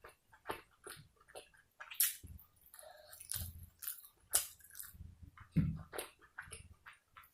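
A person chewing food close to the microphone: irregular wet mouth smacks and clicks, a few a second, with a few louder soft thuds.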